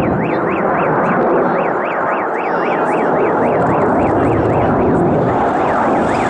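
Steady jet noise from a Su-27 fighter's twin turbofan engines as it flies overhead. Through it runs a separate electronic warble, like a car alarm or siren, rising and falling about three times a second.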